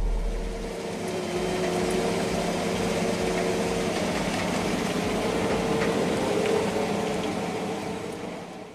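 New Holland TC5.80 combine harvester heard from inside its cab, running with a steady machine drone and hum while harvesting; the sound fades out near the end.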